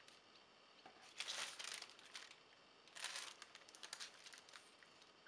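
A sheet of carbon paper rustling and crinkling as it is handled, in two bursts: one about a second in and another about three seconds in.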